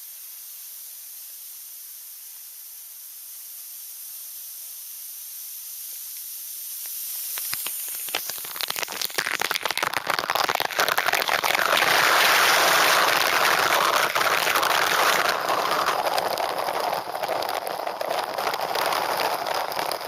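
Waterfall's rushing water: a thin steady hiss that swells after about seven seconds into a loud, full, crackling rush of falling water.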